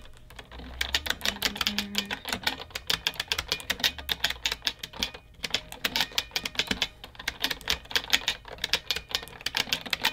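Rapid clacking of a mechanical keyboard being typed on, with a brief pause about halfway through.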